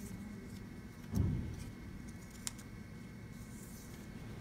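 A dull low thump about a second in, then a single sharp click, over a faint steady hum.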